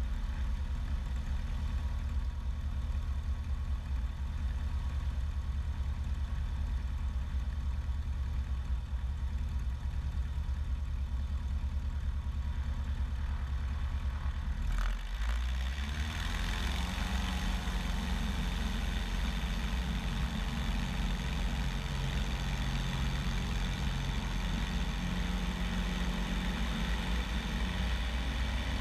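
Bellanca Decathlon's 150-horsepower Lycoming engine and propeller running at low taxi power, heard from outside the cabin. About halfway through, the engine note rises after a brief dip and stays higher and fuller.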